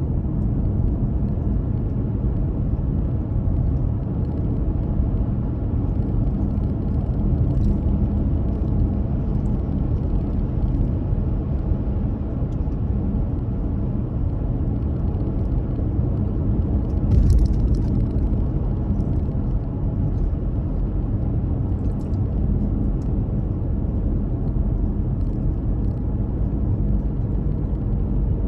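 Steady low road rumble of a car being driven, as heard inside the cabin, with one brief louder knock about two-thirds of the way through.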